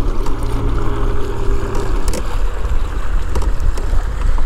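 Wind rumbling and buffeting on the camera microphone over the kayak, with a faint steady hum that stops about two seconds in and a few light clicks.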